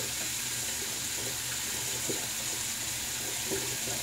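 Tap running steadily into a bathroom sink, a continuous even hiss of water.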